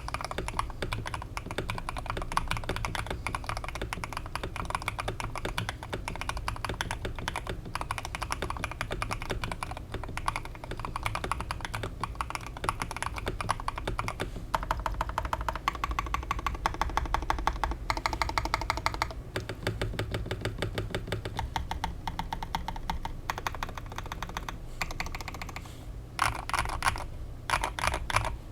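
Continuous typing on a KBD67 Lite custom mechanical keyboard with lubed Harimau 67g tactile switches on a brass plate with D65 gaskets. There are faster runs of keystrokes in the middle and a few louder bursts of strokes near the end.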